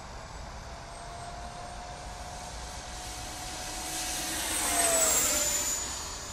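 Freewing Yak-130 RC model jet with 70mm electric ducted fans making a pass: a high fan whine grows louder, peaks about five seconds in, then drops in pitch and fades as it goes by.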